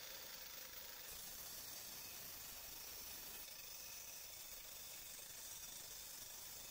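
Faint, steady hiss with no distinct knocks or machine strokes.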